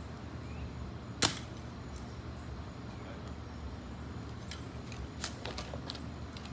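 A stick striking a hard surface once: one sharp smack about a second in, followed by a few lighter taps and clicks, over a steady low background rumble.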